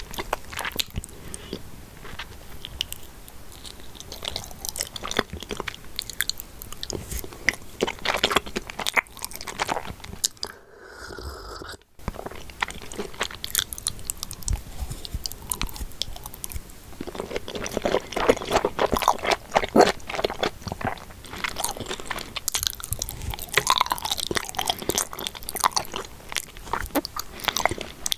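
Mukbang eating sounds: a person biting and chewing chocolate mochi close to the microphone, a dense run of sticky mouth clicks and smacks, with a brief break about halfway through.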